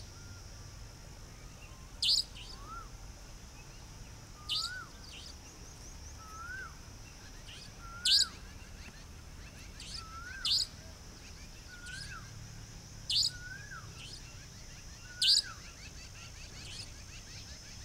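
Savanna Nightjar giving its repeated sharp, high 'dheet' call, one short note every two to three seconds. Fainter, lower rising-and-falling notes come in between, over a steady high background drone.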